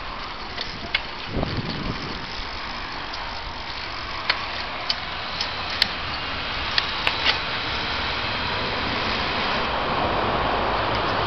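A bicycle rolling over city pavement: a steady rushing noise that grows louder over the last few seconds, with sharp clicks and knocks scattered through the first half.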